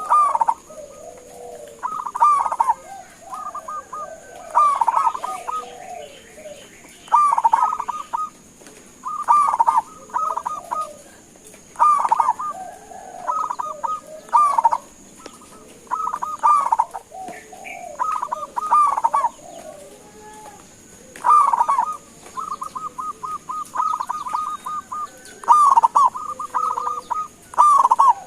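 Zebra dove (perkutut) singing: repeated phrases of rapid, stuttering cooing notes, one phrase about every two seconds, with softer lower coos between them.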